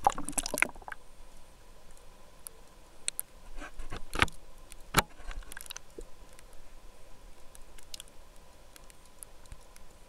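Sound picked up underwater through a camera's waterproof housing: splashing and bubbling for about the first second as it goes under, then scattered sharp clicks and knocks, the loudest about four and five seconds in, over a faint steady hum.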